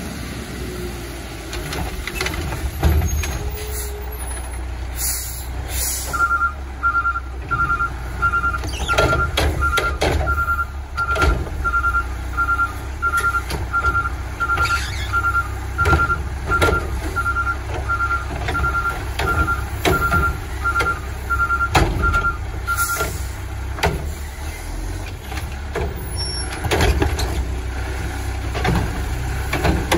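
Mack LE garbage truck's diesel engine running, with a few hisses of the air brakes and a pulsing two-tone warning beep through the middle. Knocks and clanks come as the Curotto-Can arm grabs and lifts a cart.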